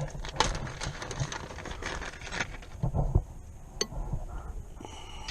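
Light metallic clinks, scrapes and a few knocks of hand work on a car's rear brake line fitting, busiest in the first two and a half seconds, with one sharp click near four seconds in.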